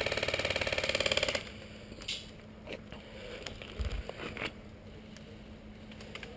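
A fast burst of full-auto airsoft fire, an even rapid clatter of shots lasting about a second and a half. It is followed by a few scattered faint clicks and a low knock.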